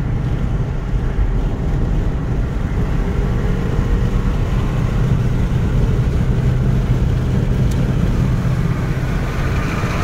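Car engine pulling hard under acceleration, heard from inside a moving car's cabin, with a steady low rumble of road and wind noise.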